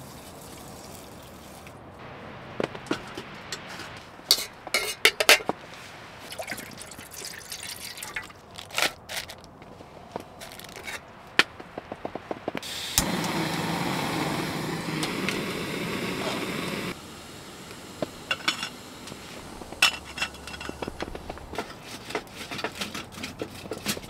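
Water poured into a cooking pot, with scattered clicks and knocks from handling cookware and food packages. A steady rushing pour lasts about four seconds around the middle.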